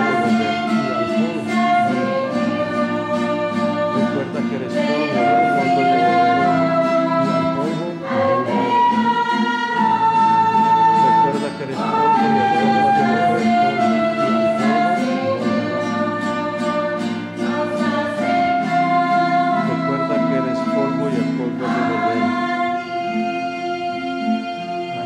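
Church choir singing a hymn in Spanish with instrumental accompaniment, in long held phrases; it grows softer near the end.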